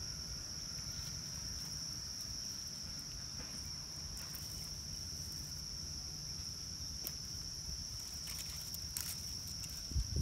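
Insects chirring in one steady, high-pitched drone, with a few faint clicks and a low thump near the end.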